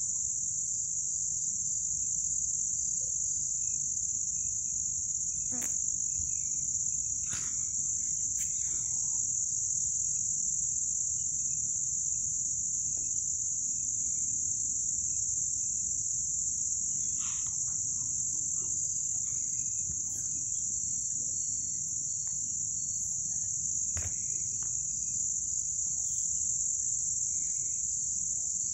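Crickets chirring in a steady, high-pitched continuous chorus, over a low rumble and a few faint clicks.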